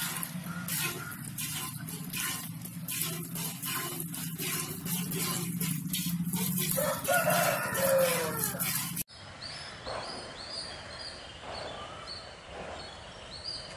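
Hand milking of a cow: jets of milk squirting into a metal pail in a steady rhythm, about two squirts a second. A rooster crows about seven seconds in. After about nine seconds the sound cuts to a quieter background with faint high chirps.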